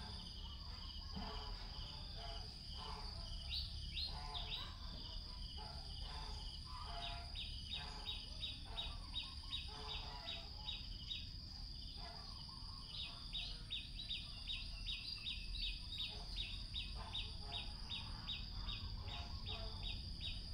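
Outdoor ambience: a steady high-pitched insect drone, with a bird calling in a fast series of short repeated notes, about three a second. The calls start about a third of the way in, pause briefly and then carry on.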